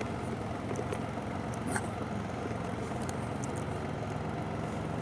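Can-Am Spyder three-wheeled motorcycle engine idling steadily, with a few faint clicks over it.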